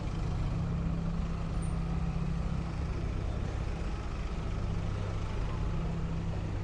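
A heavy road vehicle's engine running with a steady low hum, amid city street traffic noise.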